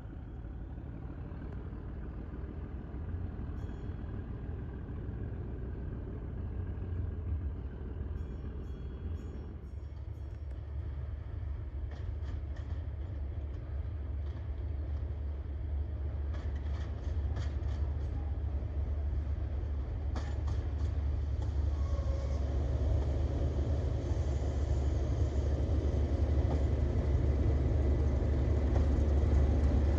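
Diesel locomotive convoy of a Class 37, a Class 45 and a Class 20 running with a deep, steady engine drone that grows steadily louder as it approaches, with scattered clicks in the middle.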